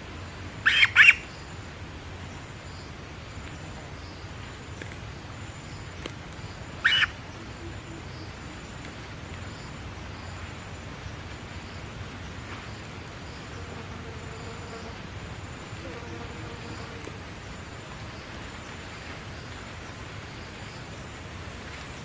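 A fledgling drongo held in the hand gives short harsh squawks: a quick cluster of three about a second in, and a single one some six seconds later.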